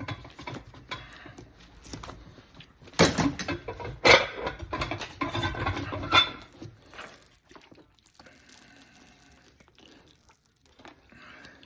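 Handling noise from work on a heated boot sole: two sharp knocks about three and four seconds in, then a few seconds of irregular scraping and rustling, fading to faint rustling.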